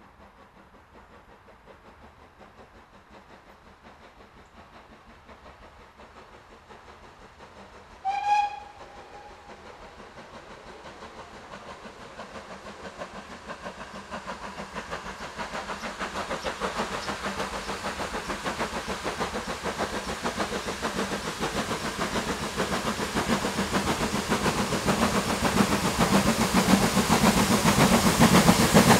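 Double-headed GWR Prairie tank steam locomotives approaching: one short whistle blast about eight seconds in, then the engines' exhaust beats and running noise growing steadily louder as they draw near.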